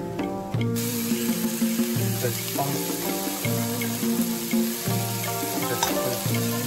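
Ground pork and chopped vegetables stir-frying in a hot wok, a steady sizzle that starts suddenly about a second in, over background music.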